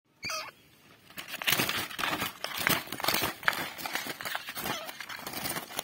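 Wire-mesh cage rattling and scratching under a hand, a dense run of quick clicks and rattles. A brief call from a caged francolin comes about a quarter second in.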